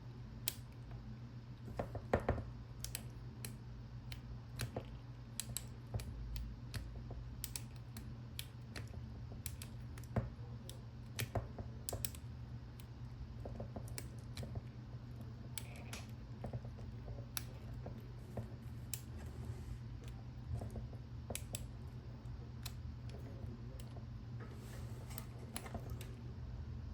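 Irregular small plastic-and-metal clicks of a Master four-digit combination padlock's number wheels being spun one by one while the shackle is held under tension: the lock is being decoded by feel. A steady low hum runs underneath.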